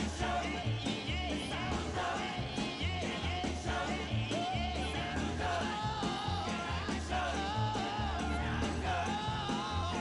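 Background music: a song with a sung lead vocal over a steady bass beat.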